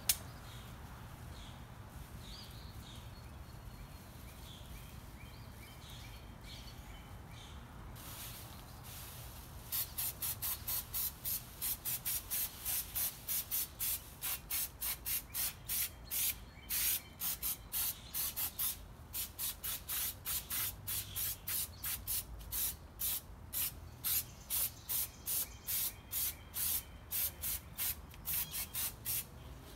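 Aerosol spray-paint can spraying gloss apple red paint onto a car's brake rotor in short, quick spurts, about two a second. The spurts begin about ten seconds in, after a quieter stretch with a few faint bird chirps.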